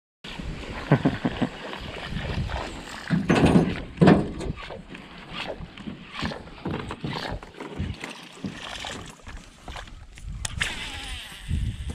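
Chopper topwater lure being retrieved across the water on a baitcasting reel, making irregular splashing and churning that is loudest about three to four seconds in.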